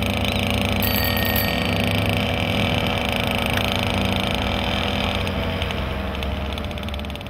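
Small two-stroke moped engines running while riding, with road and wind noise; the sound fades out near the end.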